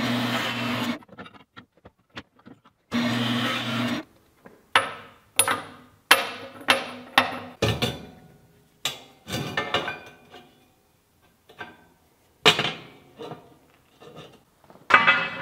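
A metal-cutting band saw runs briefly twice, then a run of sharp metal clanks and knocks as steel square tubing and bracket parts are set down and moved about on a steel workbench, each hit ringing briefly.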